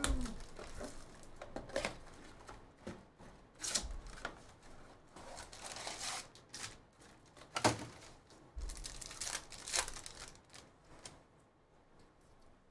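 Plastic shrink wrap and a cardboard trading-card box being torn open and handled: irregular crinkling, tearing and sharp clicks, growing quieter near the end.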